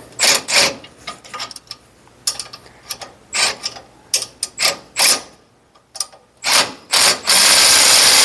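Ratchet wrench tightening the bolts of a Brunswick A2 pinsetter's ball track: a string of short ratcheting strokes, then one longer continuous run of about a second near the end.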